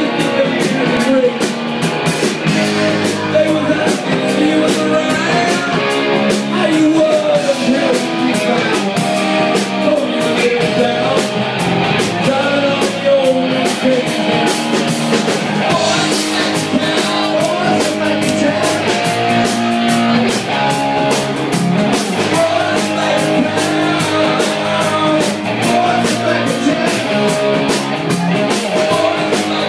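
Live rock band playing loudly: electric guitar, drum kit and a male lead singer on microphone, with a steady drum beat.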